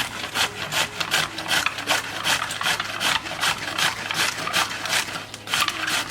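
Purple cabbage being pushed back and forth across a mandoline's thin blade: a rapid series of rasping slicing strokes, about three a second, with a brief pause near the end.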